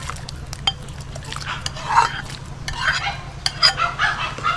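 Metal ladle stirring grated coconut into a large metal pot of liquid: sloshing, with sharp clinks of the ladle against the pot several times.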